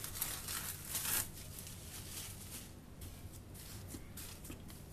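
Plastic cling film crinkling and rustling as it is peeled off a bowl of proofed dough, densest in the first second or so, then fainter scattered rustles.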